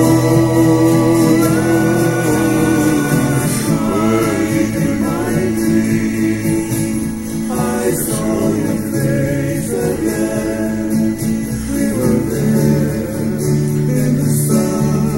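A man singing a slow song in Hawaiian, holding long notes over sustained instrumental backing.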